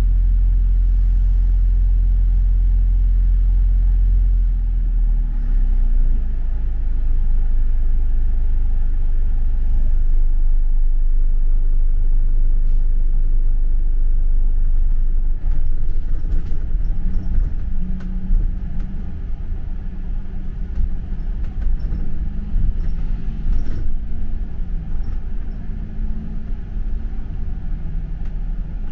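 A London bus's engine drone heard from on board. A steady low hum gives way about five seconds in to a rougher rumble that rises and falls as the bus rides along.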